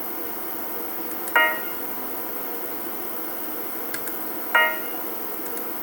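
Two identical short electronic chimes about three seconds apart, each starting sharply and fading quickly, over a steady whir of running equipment.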